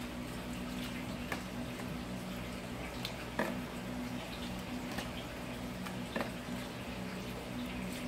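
Large pot of seafood broth boiling, bubbling with occasional short pops, over a steady low hum.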